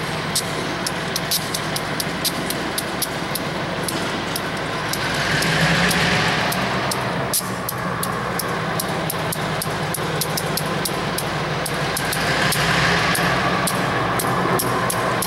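EMD switcher locomotive's diesel engine running with a steady low drone, swelling louder twice, with a quick string of sharp clicks several times a second throughout.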